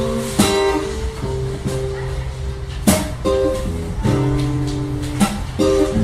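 Acoustic guitar strumming chords, with held notes ringing between strokes about once a second: the instrumental passage of a song.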